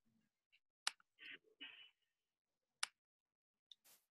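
Two sharp computer mouse clicks about two seconds apart, with faint rustling between them and a short hiss near the end, against near silence.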